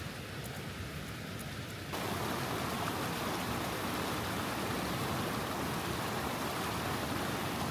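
Waterfall: a steady rush of falling water, suddenly louder and fuller about two seconds in.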